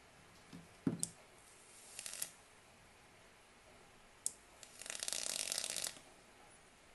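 A 0.34-ohm alien-wire vape coil on a dripping atomizer crackling and sizzling as the box mod fires it, boiling freshly dripped e-liquid off the wick: a short crackle about two seconds in, then a longer one lasting about a second near the end. A few light clicks come before it.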